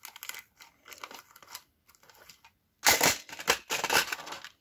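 Small clear plastic storage drawers being handled: faint clicks and rustles as one is put back in the rack, then about three seconds in a louder scraping rattle as a drawer full of cowrie shells is slid out, the shells shifting inside.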